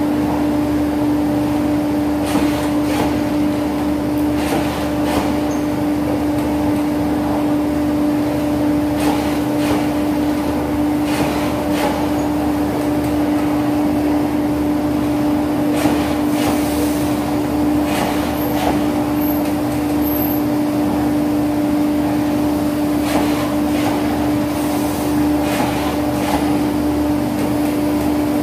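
Steady mechanical hum from a passenger train at the platform, one low tone held without change, with scattered light clicks and knocks. Three short high chirps sound about two-thirds of the way through.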